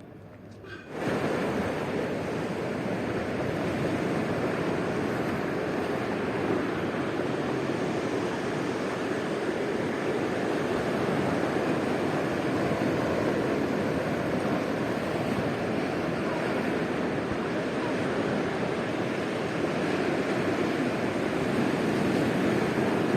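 Ocean surf breaking and washing in a steady, continuous noise that fades in about a second in.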